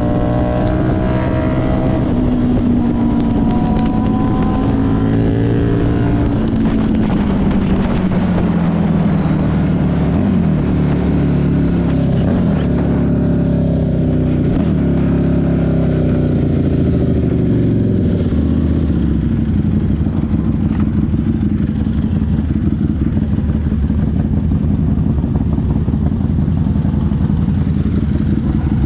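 Buell 1125CR's liquid-cooled V-twin running under way. Its note falls and rises several times in the first half, then holds a steadier cruise.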